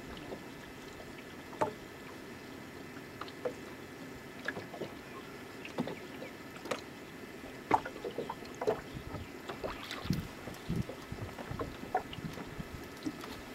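Small waves lapping and slapping against the hull of a fishing boat: irregular short splashes and knocks over a steady low wash of water and wind, getting busier in the second half.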